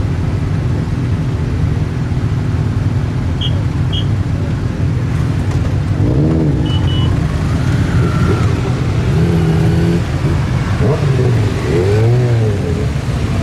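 Many motorcycle engines idling and pulling away one after another. Several bikes rev up and back down as they ride past close by.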